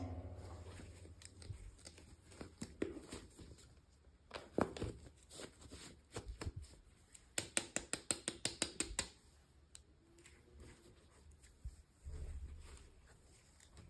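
Handling noises of a toy unboxing: scattered clicks and short rustles of packaging, with a quick run of small clicks about seven seconds in.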